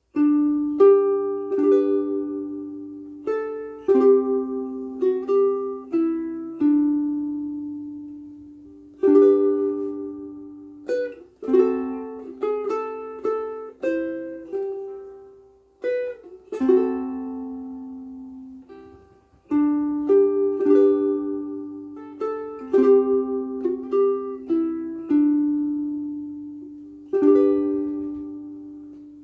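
Mahogany concert ukulele strung with worn-out Martin M600 strings, played as a slow tune of chords and single notes, each ringing and fading, with a brief pause a little past halfway. The instrument still sounds sweet despite the worn strings.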